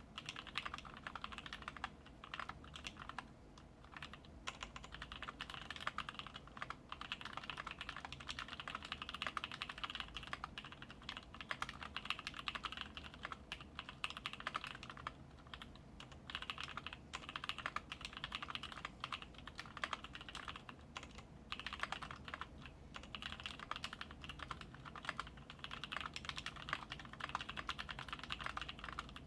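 Continuous fast typing on a KBD75v2 mechanical keyboard with lubed NovelKeys Cream linear switches on an aluminum plate and no sound dampening, keys clacking in rapid streams with a few short pauses.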